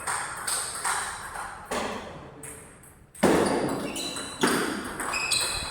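Table tennis rally: a plastic ball knocked back and forth by bats and bouncing on the table, a string of sharp pocking hits with a short high ring.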